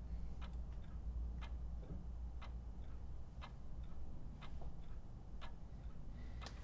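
A clock ticking steadily about once a second, each strong tick followed by a fainter one, over a low steady hum.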